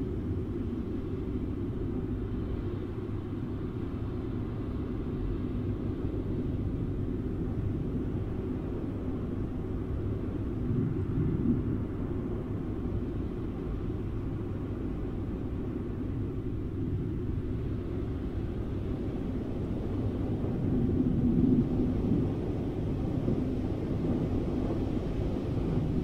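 Steady low rumble of rushing wind, a flying sound effect, swelling slightly about eleven seconds in and again a little past twenty seconds.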